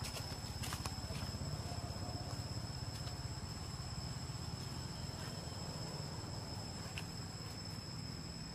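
Insects droning steadily in two unbroken high-pitched tones over a low steady rumble, with a few faint clicks.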